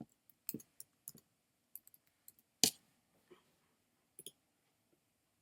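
Computer mouse clicking, about a dozen sharp clicks at irregular intervals, one louder than the rest about halfway through.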